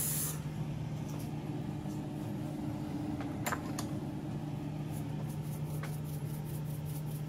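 A steady low mechanical hum, with a couple of faint clicks about three and a half and five seconds in; a bright hiss cuts off just after the start.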